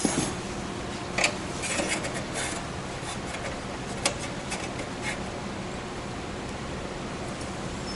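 Metal spring-hinge parts being handled and fitted: a few sharp metallic clicks and short scraping rubs in the first five seconds, then only a steady low background hiss.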